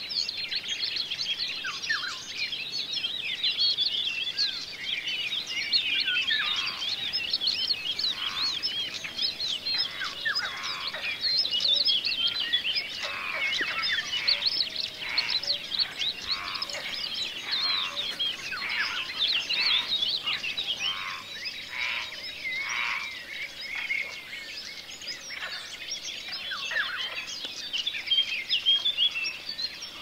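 Chorus of many songbirds singing at once, with overlapping chirps, trills and short whistled sweeps. Through the middle stretch a lower call repeats about once a second.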